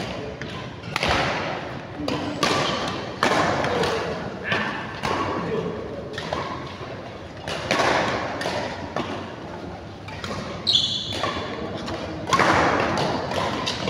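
Badminton rally: rackets striking the shuttlecock in a quick exchange of sharp hits, with the loudest hit, a jump smash, about twelve seconds in.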